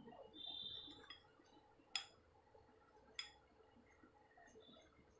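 Faint sounds of a plastic spoon stirring a thick flour batter in a glass bowl: a brief high squeak near the start, then two light clinks of the spoon against the glass about a second apart.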